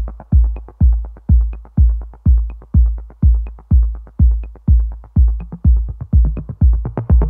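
Electronic music: a heavy kick drum beats steadily about twice a second with light clicks between the beats, and the hits come quicker just before the end.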